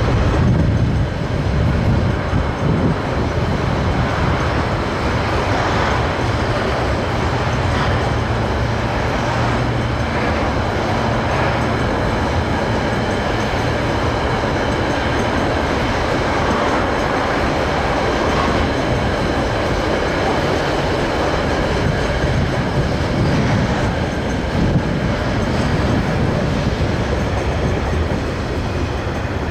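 GE-built DXB-class diesel locomotive working hard at the head of a freight train, producing 'classic GE thrash'. Its low engine note is strongest in the first dozen seconds, then blends into the steady run of wagons rolling past.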